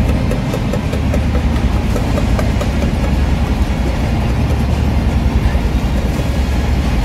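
Indian passenger train coach in motion, heard from inside: a steady, loud low rumble of the running train.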